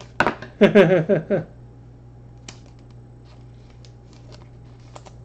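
A man's voice briefly at the start, then faint, scattered light clicks and ticks of trading cards being handled, over a steady low hum.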